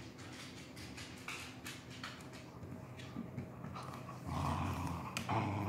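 Beagle's claws clicking on a hardwood floor as it trots back with its toy, then from about four seconds in a low, playful growl as it mouths the toy.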